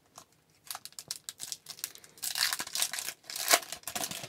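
Hockey card pack wrapper crinkling and tearing as it is opened by hand: a few light rustles and clicks at first, then a dense crinkle about two seconds in, loudest near the end.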